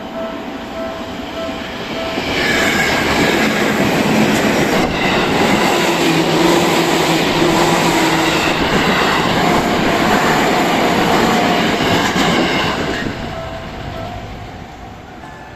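Level-crossing warning bell ringing in steady pulses, then a Seibu 4000 series electric train passes close by from about two seconds in. The loud rail noise carries a few steady tones and fades over the last few seconds as the train moves away.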